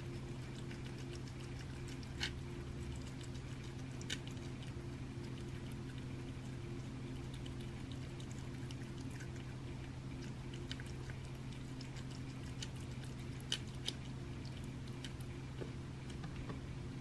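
A cat licking and chewing the juices and scraps of raw rabbit food off a paper plate: scattered small wet tongue clicks and smacks, a few louder, over a steady low hum.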